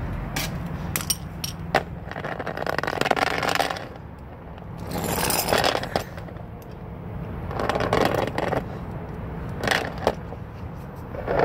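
Scraping and sharp metallic clicks of tools working on the bottom mount of a semi truck's air-suspension bag, in bursts of about a second, over a low steady hum.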